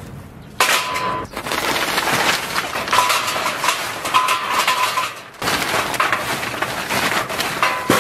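Charcoal briquettes poured from a plastic sack onto perforated steel charcoal trays: a continuous clatter of hard lumps hitting metal and each other, with a short break a little after five seconds in.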